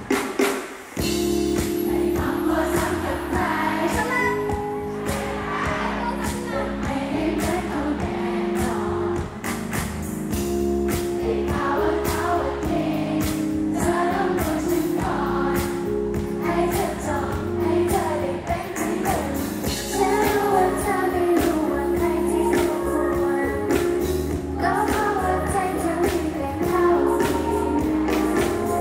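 T-pop girl-group song with female vocals over a steady dance beat, played loud through a concert sound system. The music drops out briefly just under a second in, then comes back.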